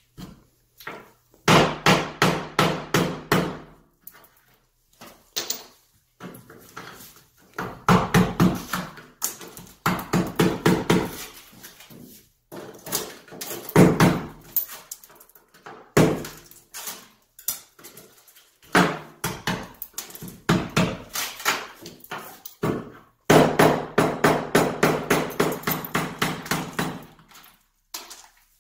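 Hammer striking a chisel against wall tile, chipping out tile to open up the wall around a shower valve. The blows come in quick runs of several a second, separated by short pauses, with the longest runs near the start and near the end.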